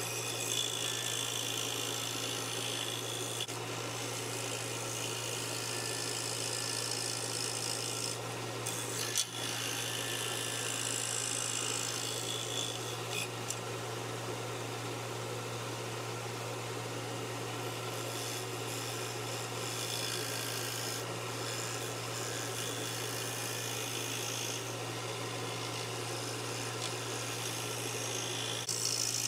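Scroll saw running steadily with a constant low hum, its fine blade cutting a small wooden block in a rasping saw noise that comes and goes in spells as the piece is fed and turned.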